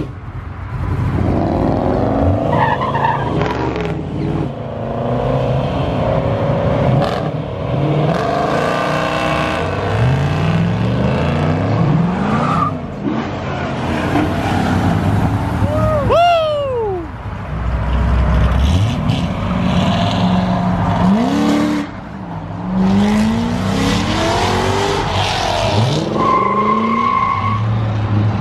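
Car engines revving and accelerating hard one after another, the pitch climbing and falling with each rev, as cars do burnouts while leaving. Tyres squeal briefly about halfway through, and a steady high tone sounds near the end.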